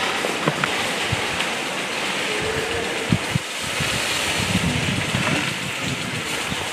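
Steady rushing noise, like wind on the microphone, broken by a few sharp clicks and knocks and a brief faint tone a little before the middle.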